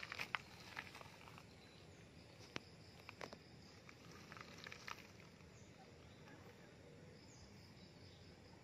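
Faint rustling and crinkling of a plastic vinyl banner as a kitten pushes its head into it, loudest in the first second or so, followed by a few scattered sharp clicks over the next few seconds before it settles to near quiet.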